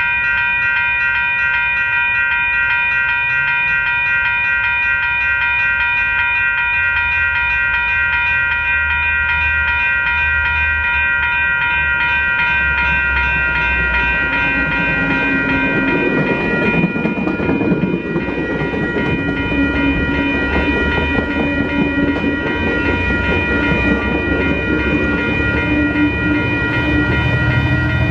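Level-crossing warning bells ring steadily while a commuter train of bilevel coaches approaches and passes close by. The train's rumble and wheel noise build up from about halfway through, and the locomotive pushing at the rear draws near at the end.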